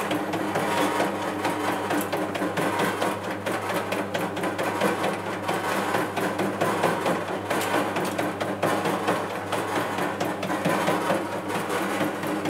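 Custard apple de-seeding machine running: a steady motor hum under continuous rapid clattering.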